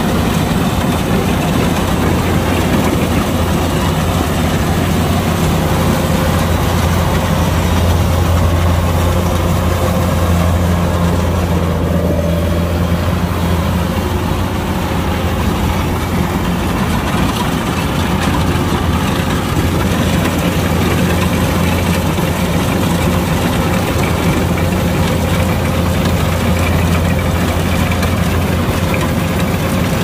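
Kubota DC-105X combine harvester's diesel engine running steadily, a continuous low hum with machinery noise over it and no change in pace.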